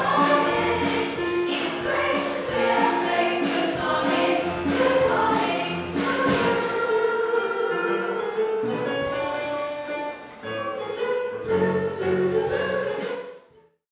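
Stage-musical cast of young performers singing a chorus number together over musical accompaniment; the music cuts off just before the end.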